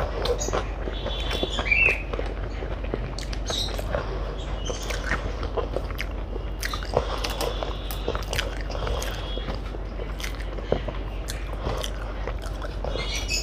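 A person chewing and biting food, with close-miked mouth noises and many small irregular clicks, over a steady low hum.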